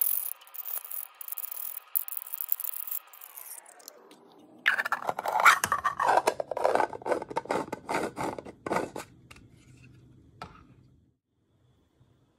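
3D-printed plastic parts of a threaded burger box being handled: a scraping, rasping rub as the threaded sections turn against each other, then a rapid run of plastic clicks and knocks as the layers are fitted together, and a single knock near the end.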